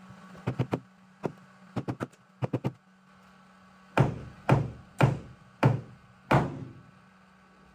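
Tapping on a car's steel body panel during paintless dent repair: groups of two or three light quick taps, then five heavier knocks about half a second apart, each ringing briefly.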